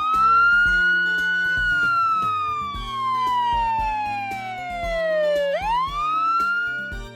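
A siren wailing over background music with a steady beat. It rises quickly, holds, falls slowly for about five seconds, then rises again near the end.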